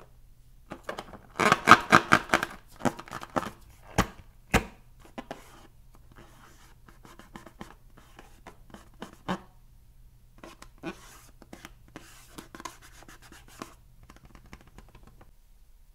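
Hands rubbing and squeezing an inflated rubber balloon: a quick run of squeaky rubs about a second and a half in, two sharp taps around four seconds in, then scattered softer rubs and squeaks.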